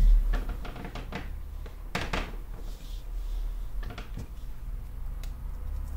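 Clear acrylic stamp block pressed down by hand onto a paper doily on the table: a dull thump at the start, then soft handling and rubbing noise with a few light clicks and taps.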